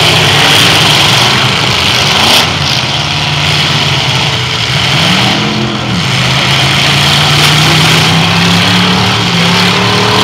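Demolition derby cars' engines running together, one revving up and back down about five seconds in, with a brief bang about two seconds in.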